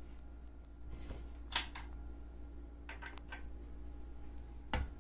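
A few light clicks and taps as a cat paws at a metal bolt standing in a wooden cat-tower panel, with the loudest knock near the end.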